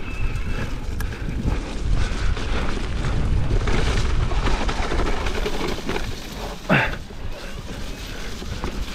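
Riding noise from a Cannondale Moterra LT2 electric mountain bike descending a wet trail: steady deep rumble of wind buffeting the microphone and tyres over the ground, with rattles from the bike. A brief sharp sound about two-thirds of the way in is the loudest moment.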